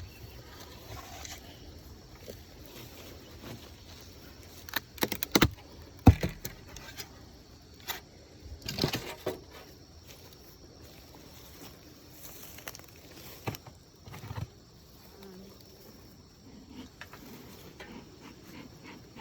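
Honeybees buzzing at an opened hive, with several sharp knocks and clatters, the loudest about six seconds in.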